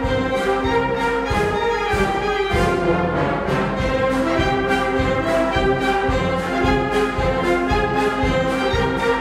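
Concert wind band playing: clarinets, flutes, saxophones and brass hold sustained chords over a steady beat from a drum kit.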